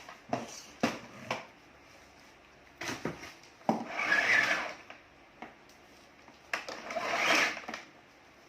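Clicks and knocks of plastic vacuum cleaner parts and plug being handled, with two short rustling noises about four and seven seconds in.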